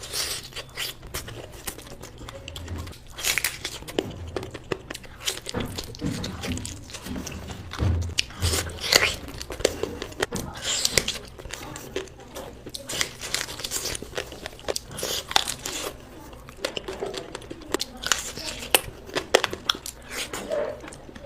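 Close-up eating sounds: a person biting and chewing food, with irregular crunches and wet mouth clicks and smacks.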